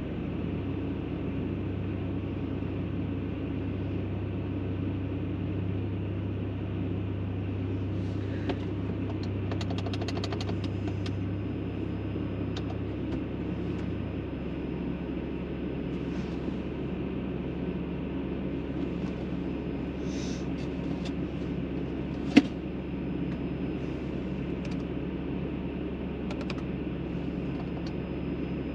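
Several vehicle engines idling steadily in an enclosed shop, a low hum in the mix cutting out about halfway. Scattered light clicks, and one sharp click about two-thirds of the way through.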